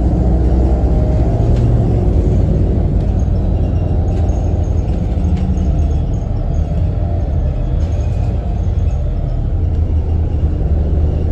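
City bus driving, heard from inside the passenger cabin: a steady low rumble of engine and road noise.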